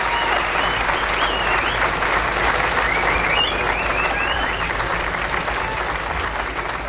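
Concert audience applauding, with high rising-and-falling whistles over the clapping in the first few seconds; the applause eases off slightly near the end.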